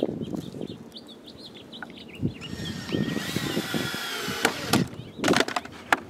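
A few sharp knocks near the end as a cordless drill is set down on wooden boards and lumber is handled. Small birds chirp in the middle.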